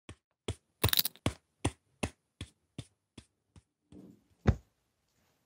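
Sound effects of sharp clicks repeating evenly about two and a half times a second, loudest in a quick cluster about a second in and fading after, then a single loud thump near the end.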